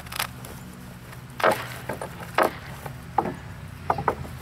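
Wooden split rail fence rails being pried apart with a metal pry bar: a handful of sharp wooden knocks and cracks, the two loudest about a second and a half and two and a half seconds in.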